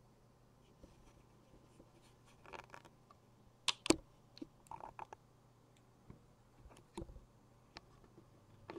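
Handling noise from a clear plastic hologram pyramid being set up on a screen: scattered light clicks, taps and scrapes, with two sharp knocks about four seconds in, over a faint steady low hum.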